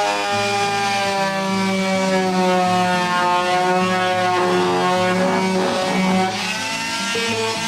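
Electric palm sander running on a wooden birdhouse, its motor whine sagging in pitch as it bears on the wood and rising again near the end, to knock down the wood fibres before painting. Background music with a stepping bass line plays underneath.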